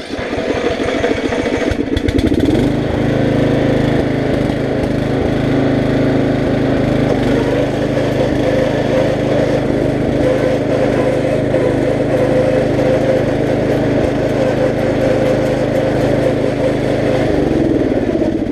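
Riding lawn mower engine running hard as it races, revving up about two seconds in, holding a steady drone, and dropping back near the end.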